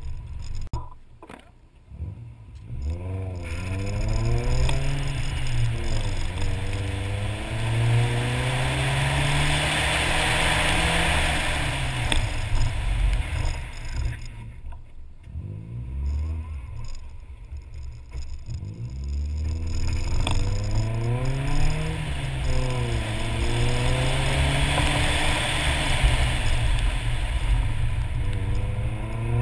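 Nissan 240SX's KA24 four-cylinder engine, heard onboard on a wet autocross course. It comes up from a lull about three seconds in and then revs up and down over and over through acceleration and braking, with a hiss of tyres on the wet surface beneath it.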